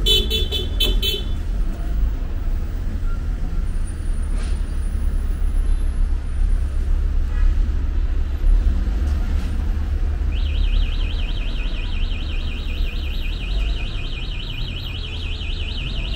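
City street traffic rumbling steadily. A short burst of rapid electronic beeping sounds at the start, and from about ten seconds in an electronic alarm warbles rapidly up and down in pitch.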